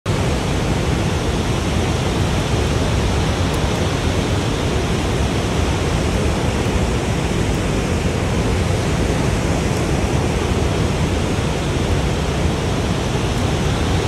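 Large waterfall's steady, loud rushing: an unbroken wash of water noise, heaviest in the low end.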